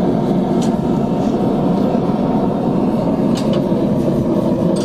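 Small propane forge's burner running with a steady rush. A few light metal clinks come from the steel rod and tongs at the forge mouth.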